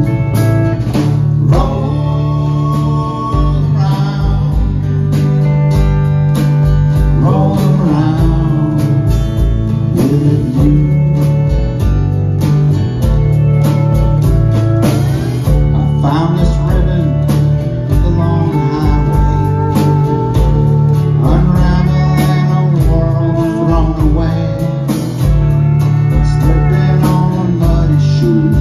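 Live country band playing a song: strummed acoustic guitar, electric bass, drums and pedal steel guitar.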